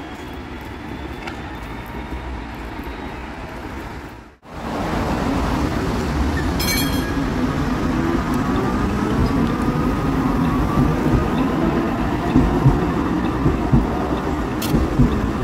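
Cologne Stadtbahn light-rail car running close along the platform: a steady rumble of wheels and running gear with a faint whine that rises and falls, and a few sharp clacks near the end. It starts after an abrupt cut from about four seconds of quieter, more distant rail and street noise.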